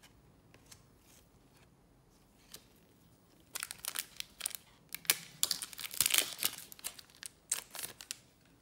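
A trading-card pack wrapper crinkling loudly as it is torn open, starting about three and a half seconds in, after a few faint taps of cards being handled.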